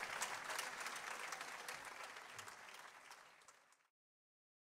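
Audience applauding, fading out steadily and cut off to silence near the end.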